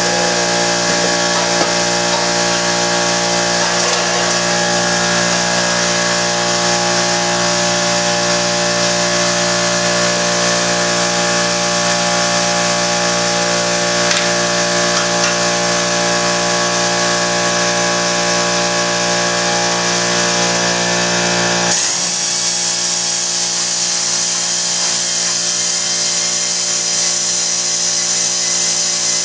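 A power tool running continuously with a steady whine, its tone shifting about 22 seconds in, while the exhaust system is being taken off the car.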